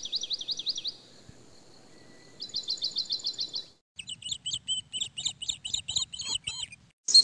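Small songbirds singing: a fast, high trill of repeated notes at the start and again a little past the middle, then a more varied run of quick chirps through the last few seconds.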